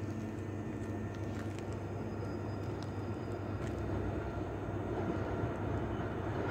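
Class 66 diesel locomotive approaching, its two-stroke V12 diesel engine a low, steady drone that slowly grows louder.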